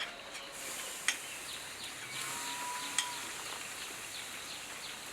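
Butter sizzling as it melts in a hot pan, a hiss that starts about half a second in and holds, with two sharp clicks. Birds chirp repeatedly behind it.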